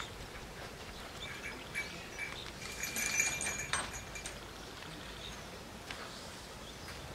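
Quiet outdoor ambience with faint high bird chirps around the middle and a few light clicks.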